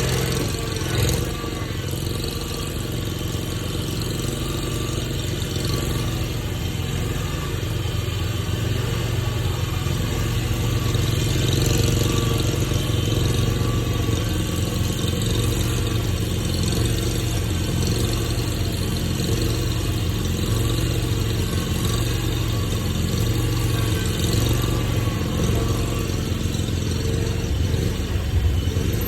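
A vehicle engine running steadily at idle, with gentle swells in loudness.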